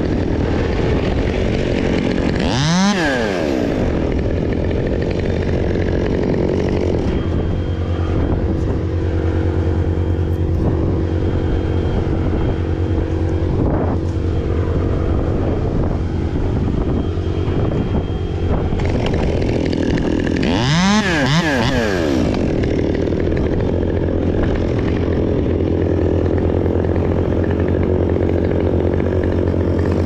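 Two-stroke chainsaw idling steadily between cuts, briefly revved up and back down twice: about three seconds in and again about twenty-one seconds in.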